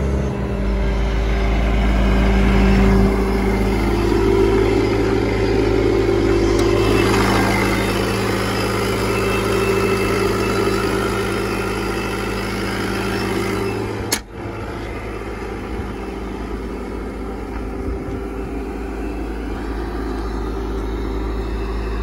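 Bobcat T770 compact track loader's Kubota four-cylinder turbo-diesel running steadily. Its tone shifts about three seconds in, and there is a sharp click with a brief drop in level about two-thirds of the way through.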